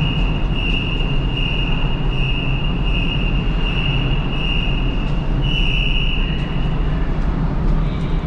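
Steady low rumble of vehicle or machinery noise with a high-pitched warning beeper pulsing about twice a second, which stops about seven seconds in.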